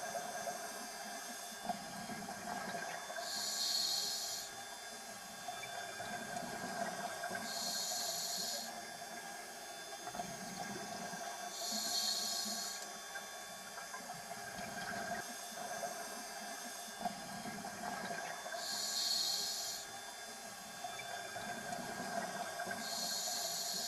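Scuba diver breathing through a regulator underwater: about every four seconds a hiss of inhaled air, alternating with a low bubbling rush of exhaled air. Six breaths in all.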